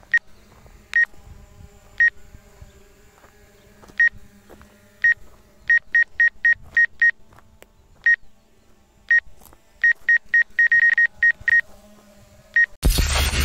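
Short electronic beeps, all at the same pitch and unevenly spaced, come singly at first and then in two quick runs of several a second. Near the end a loud boom with a low rumble cuts in.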